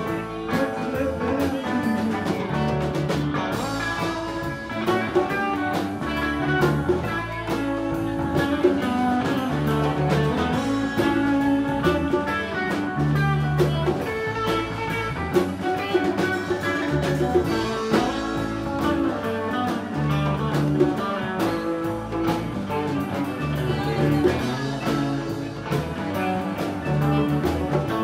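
Live band playing: guitar lines over a walking bass and drum kit, at a steady groove.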